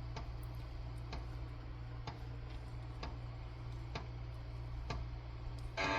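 Steady low electrical hum from the restored Delco car radio's amplifier idling between Bluetooth tracks, with faint ticks about once a second. Music starts from its speaker just before the end.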